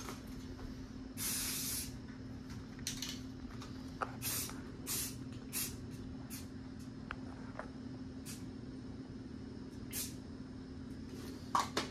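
Aerosol spray-paint can spraying in a series of short hissing bursts, about a dozen in all, the longest about a second in. A steady low hum runs underneath.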